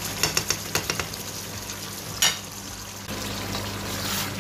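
Chicken karahi sizzling as it fries in a pan, with a wooden spoon knocking and scraping against the pan as it is stirred: several quick taps in the first second and one sharper knock about two seconds in.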